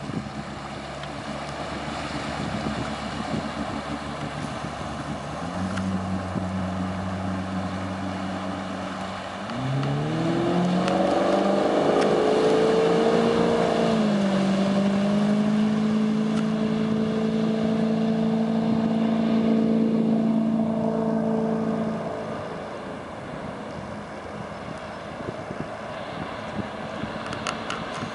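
2003 Regal 2200 LSR's sterndrive engine running at low speed, then accelerating with a rising pitch about a third of the way in, holding a steady high note under load, and throttling back near three quarters through. Wind and water rush underneath throughout.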